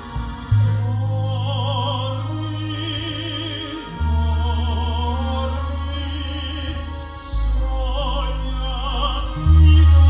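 Classical operatic singing with a wide vibrato over sustained low accompaniment notes, the bass changing about every three seconds.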